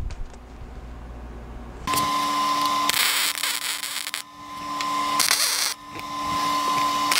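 MIG welder arcing in three stretches of steady crackle with a hum under it, starting about two seconds in and breaking off briefly twice.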